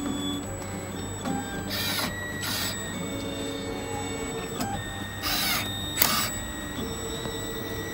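Motorized blocking arm of an Essilor Kappa lens centering-blocking unit working as it fixes the adhesive block on the lens for edging: a steady motor whir with about four short hisses, two about two seconds in and two around five to six seconds in.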